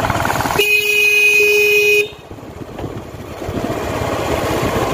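Motorbike horn honking once, a steady tone held for about a second and a half before it cuts off. Around it, the running noise of a motorbike riding slowly on a rough street dips after the honk and then builds back.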